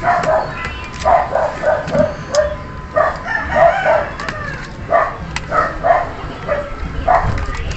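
Chickens clucking, a run of short calls repeating every fraction of a second, with a few light clicks mixed in.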